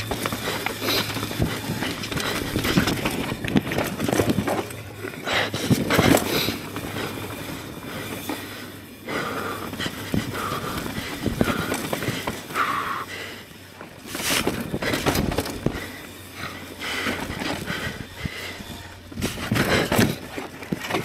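Mountain bike riding a dirt trail: steady tyre and rolling noise that swells and eases with the terrain, with frequent knocks and rattles from the bike over bumps.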